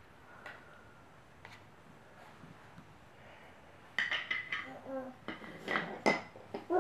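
Wooden toy train track pieces clattering and knocking together as a baby handles them, starting about four seconds in after a quiet stretch with a few faint clicks. A short baby vocal sound comes in among the knocks, and babbling begins at the very end.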